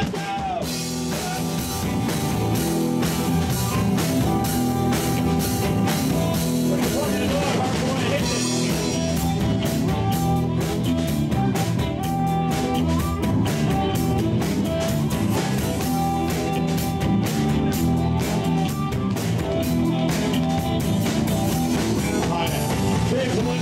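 Live rock band playing: drum kit, bass and electric guitar with a steady beat, and a harmonica held to the vocal microphone playing sustained notes over it.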